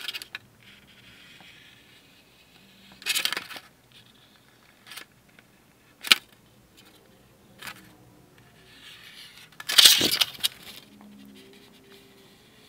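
Sharpie marker scratching along thin vacuum-formed plastic as cut lines are redrawn, with the flexible plastic part rustling and clicking as it is held and shifted. There are a few short scratchy strokes, a sharp click about six seconds in, and the loudest scraping burst around ten seconds in.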